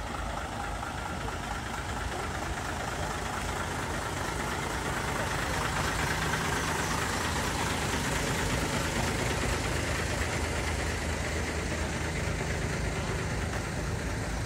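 A truck engine idling steadily, with voices in the background.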